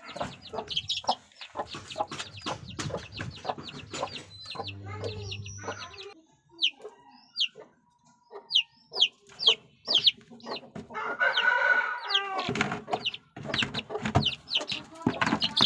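Aseel chickens clucking, with many short, sharp high calls throughout and one longer call lasting over a second about eleven seconds in.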